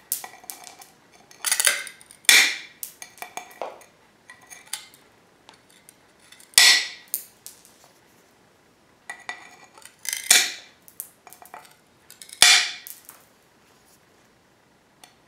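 Tile nippers biting small pieces off the edge of a ceramic tile: a series of sharp snaps at irregular intervals, about five loud ones, with lighter crunches and clinks between.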